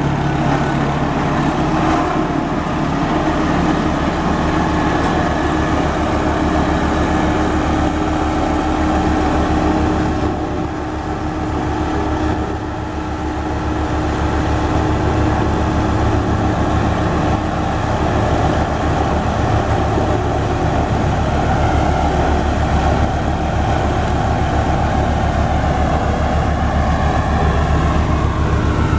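Diesel engine of a BW 211D road roller running steadily as it works, with a deep, even hum and a brief drop in level about a third of the way in.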